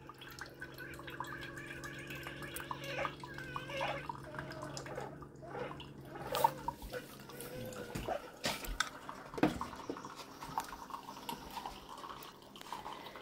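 Coffee maker brewing: liquid dripping and trickling over a low steady hum that stops about seven and a half seconds in, with scattered small clicks.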